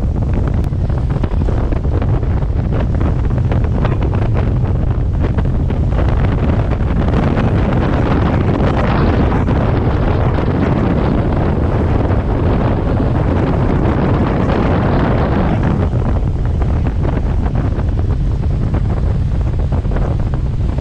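Heavy wind buffeting the microphone while speeding over water during a towed tubing ride, with the rush of water beneath. A louder rushing hiss swells from about eight to fifteen seconds in.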